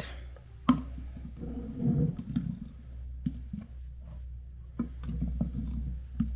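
Plastic measuring cup scooping flour from a glass jar and tipping it into a mixing bowl: soft scraping and rustling with scattered light taps, and one sharper click about a second in, over a steady low hum.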